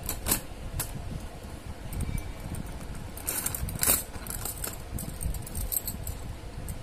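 Stone-studded bangles clinking and jangling against each other and the plastic storage box as a hand sorts and lifts them: a few sharp clicks near the start, a louder flurry of clinks about halfway through.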